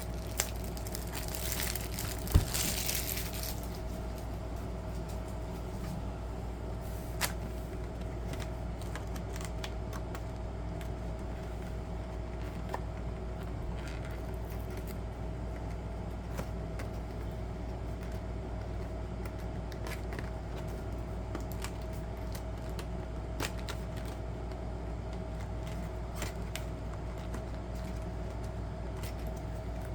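Plastic wrapping crinkling and tearing for about two seconds near the start, then only scattered light clicks and taps of handling over a steady background hum.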